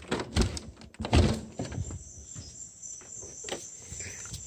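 A few thumps in the first second and a half as the back door is opened and gone through, then crickets chirping in a steady high chorus outside.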